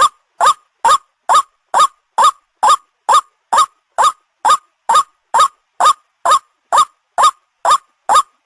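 White-breasted waterhen (ruak-ruak) call, a short note rising and falling around 1 kHz, repeated evenly about two times a second. It is a recording played as a lure call for hunting the bird.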